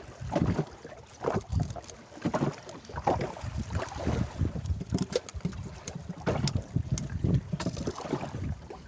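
Choppy sea water slapping against the hull of a small open fishing boat in irregular knocks, with wind buffeting the microphone.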